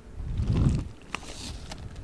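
Giant spiky orbeez-filled squishy ball being squeezed and handled close to the microphone: a low, muffled swell about half a second in, followed by a few small sharp clicks.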